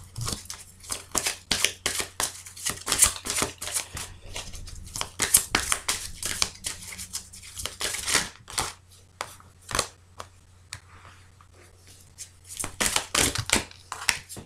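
A deck of oracle cards shuffled by hand: quick, irregular papery flicks and slaps of card against card, easing off about two thirds of the way through and picking up again near the end.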